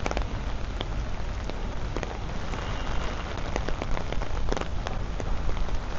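Steady rain falling, not too hard and pretty much straight down, with the sharp ticks of single drops landing close by.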